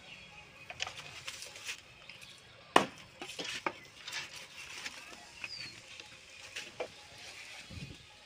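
Scattered light knocks and clicks of bamboo strips and tools being handled while rope is pulled out and tied, with one sharp knock about three seconds in.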